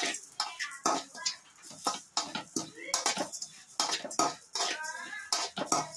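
A spoon scraping and clicking against a metal kadai while stirring whole spices (cumin, coriander seed, fennel) and rice as they dry-roast, with the seeds rustling. The clicks and scrapes come irregularly, one stroke after another.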